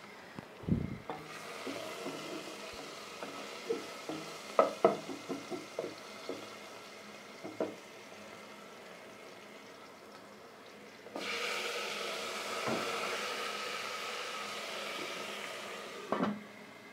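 Chopped onions frying in oil in a metal pot, sizzling, with a spoon knocking and scraping against the pot during stirring. About eleven seconds in the sizzle suddenly gets louder, and near the end a metal pot lid clanks twice.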